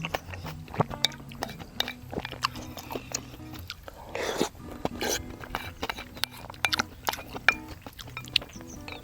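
Person eating ramyeon noodles with chopsticks, with chewing, sharp clicks of utensils on the bowl and a short slurp about four seconds in, over light background music.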